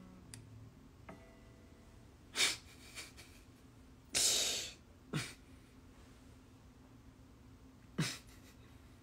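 A pause in guitar playing: a few breaths and sniffs through the nose, with one longer exhale about four seconds in, over faint guitar string notes.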